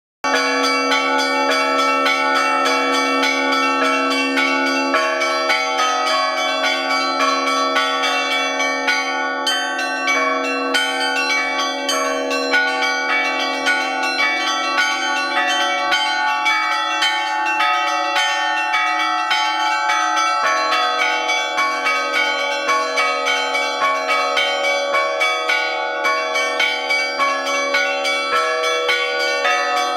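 Russian Orthodox church bells all rung together by one ringer (a trezvon): rapid, overlapping strikes of the small bells over the steady ringing of the larger bells, without a pause.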